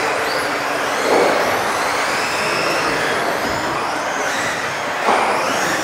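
Several electric off-road RC cars racing, their motors whining and gliding up and down in pitch with the throttle over a steady hiss. It swells louder about a second in and again near the end.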